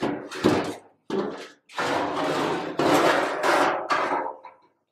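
Stamped-steel VW Beetle floor pan scraping and rattling against metal as it is pulled out, in about five rough scrapes that stop shortly before the end.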